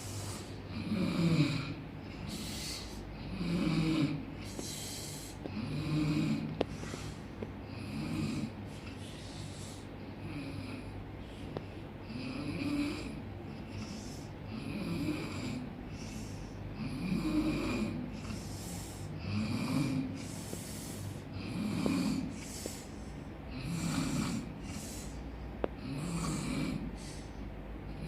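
A person snoring loudly and rhythmically, roughly one snore every two seconds. Each snore has a low rattling rumble with a hiss over it, a sound likened to a bus's air brakes going 'cas ces'.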